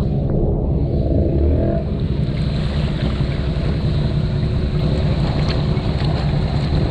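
Honda ATV engine running hard under load, its pitch rising briefly near the start, with a rushing, watery noise mixed in.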